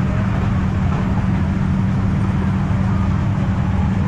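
An engine running steadily: a low rumble with a constant hum.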